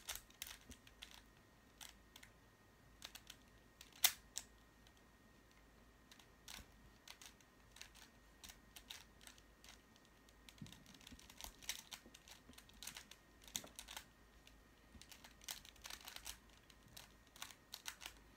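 Rubik's cube layers being turned by hand: quick, irregular plastic clicks and clacks, in bursts, with one sharper clack about four seconds in.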